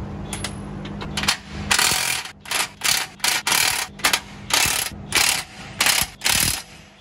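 DeWalt cordless impact wrench hammering in about a dozen short bursts, working nuts on a truck's rear axle.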